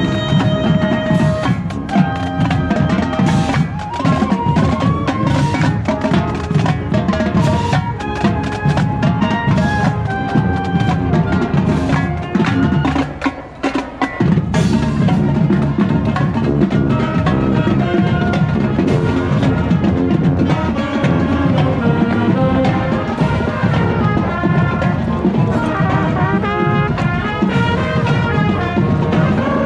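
Marching band playing: drums with a melody carried by horns, with a brief drop in level about halfway through.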